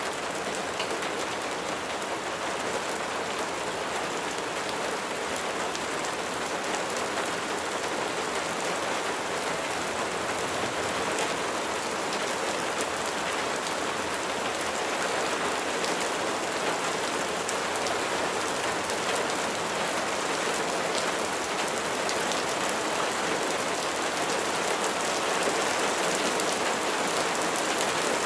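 Steady rain falling on a surface, a dense even hiss with many small drop ticks, growing slightly louder near the end.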